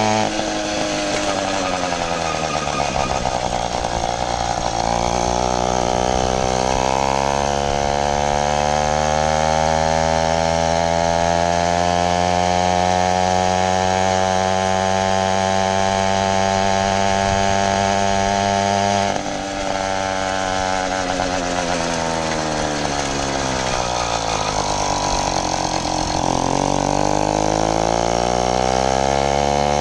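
80cc two-stroke motorized-bicycle engine running under way. Its revs drop a few seconds in and climb back up, hold steady, falter for a moment about two-thirds through, then drop and build again near the end.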